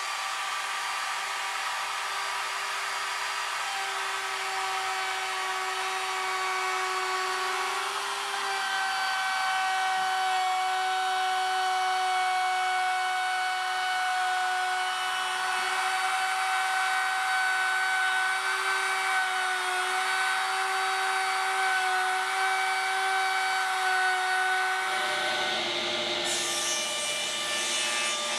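Ridgid compact trim router running with a flush-trim bit, trimming the overhanging Formica laminate flush with the MDF edge: a steady high motor whine that dips slightly in pitch as it takes the cut. Near the end the whine stops and a rougher, hissing sound takes over.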